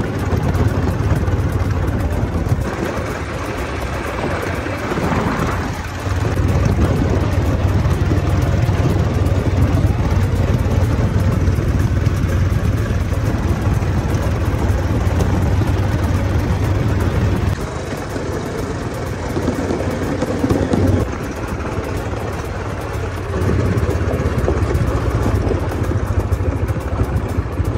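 ATV (quad bike) engine running under way on a gravel road, a steady low drone with tyre noise. The drone dips for a few seconds twice, about three seconds in and again a little past halfway.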